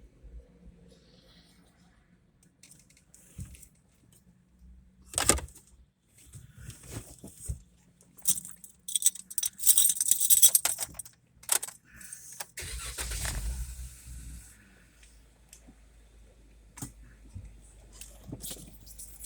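Keys jangling among clicks and knocks of handling, then a car engine starts about two-thirds of the way in and keeps running at idle.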